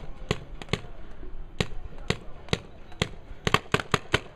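Paintball markers firing: about a dozen sharp pops at uneven intervals, with a quick flurry of shots about three and a half seconds in.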